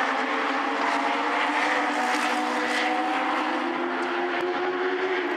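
Several Legends race cars' motorcycle-derived engines running on the track together. Their overlapping engine notes hold steady at a fairly constant pitch, with slight drifts as the cars circle.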